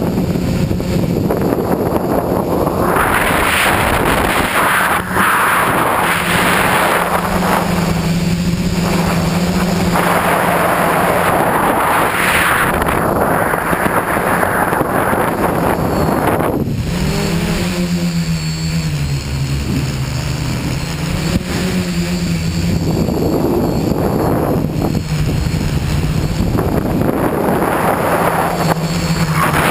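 A tricopter's electric motors and propellers humming steadily, heard from its onboard camera under heavy wind rush on the microphone. The pitch dips and climbs back about two-thirds of the way through.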